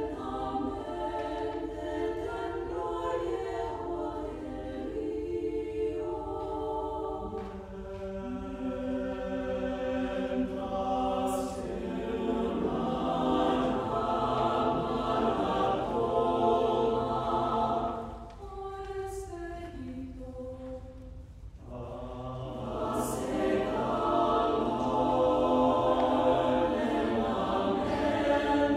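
Mixed choir singing a cappella in sustained chords. About two-thirds of the way through, the sound thins and drops in level before the full choir swells back. Three short hissed 's' sounds cut through the singing.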